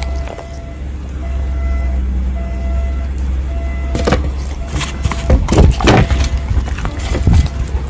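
A dog chewing food, with a run of loud crunches and clacks in the second half, over a steady low rumble and a faint repeating tone.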